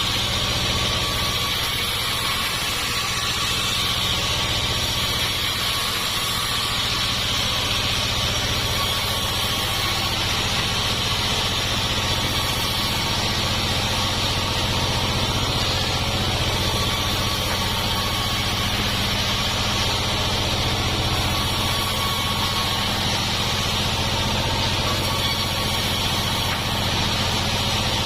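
Sawmill machinery running steadily: an even engine drone with a constant high hiss that does not rise or fall.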